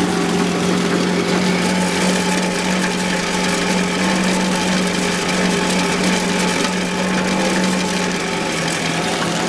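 Pedal-powered grain dehuller and winnower, built from an old exercise bike, bicycle parts and a forge blower, running steadily at its normal pedalling speed: a constant mechanical whir with a steady hum, the blower fan spinning fast and the grinder and shaking screen working.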